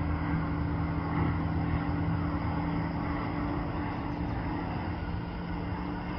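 Steady engine drone with two low, level hums under a broad rushing noise, unchanging in loudness.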